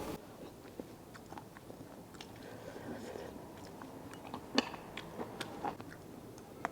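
A person chewing food close to the microphone: soft, wet mouth sounds with scattered small clicks.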